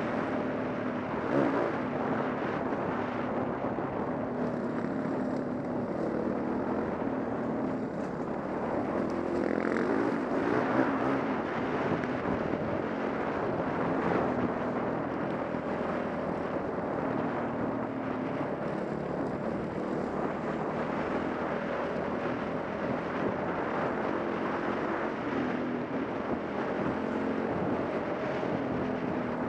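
Dirt bike engine running while riding along a dirt trail, heard from the rider's helmet, its note rising and falling with throttle and gear changes.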